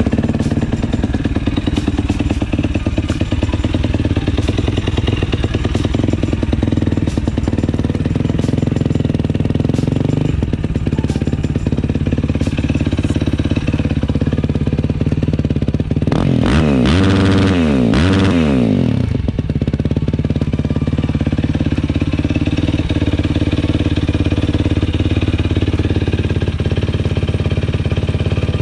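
2014 Yamaha YFZ450R's single-cylinder four-stroke engine running through a freshly fitted HMF full exhaust system, mostly at a steady idle. About two-thirds of the way through it is revved briefly, the pitch rising and falling, then it settles back to idle.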